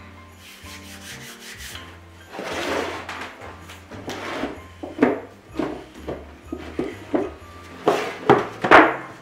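Wooden rolling pin rolling out stiff gingerbread dough on the bottom of a metal roasting pan: a run of short rubbing strokes that grow louder near the end, over soft background music.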